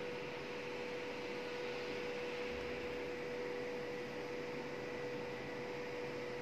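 Steady electric hum of a home stair lift's machinery: one constant high tone over an even hiss, unchanging throughout.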